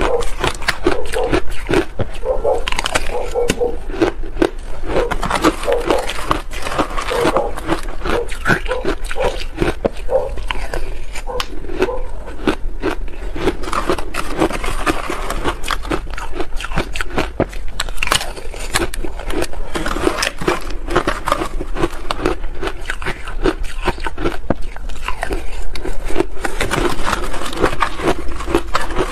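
Metal spoon scraping and stirring through soft shaved ice in a plastic tub, giving a dense run of crunching and crackling that goes on without a break.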